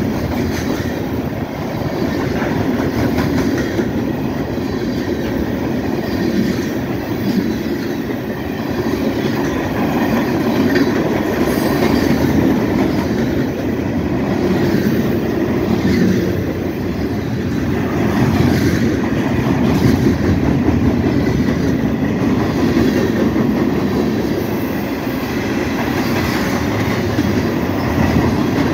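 Freight cars of a BNSF manifest train (covered hoppers and boxcars) rolling past close by at speed: steady wheel-on-rail noise that holds at one level throughout.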